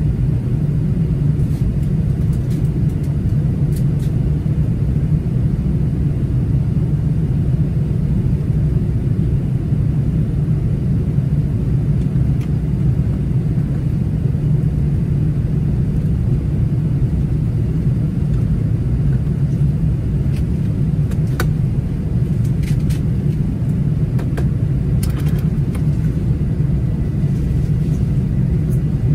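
Steady low cabin rumble of an Airbus A380-800 in flight, the even drone of engines and airflow heard from inside the passenger cabin.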